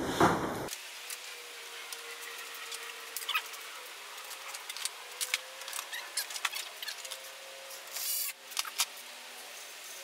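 Scattered light clicks and taps of the brittle plastic grille and its clips being fitted back onto a 2006 Chevy Tahoe's front end, with handling of a small hand tool. There is a short rattling burst about eight seconds in.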